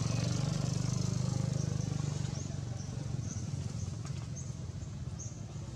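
A motor vehicle's engine running as a low pulsing hum, loudest in the first couple of seconds and then slowly fading. Short high chirps repeat faintly above it.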